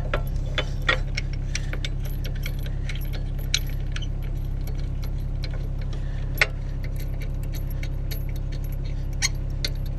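Scattered light metal clicks and clinks of a steel locking plate and threaded bolt being fitted and hand-threaded into a mini excavator bucket's hitch, with one sharper clink past the middle. Under it runs the steady low hum of the John Deere 26G mini excavator's diesel engine idling.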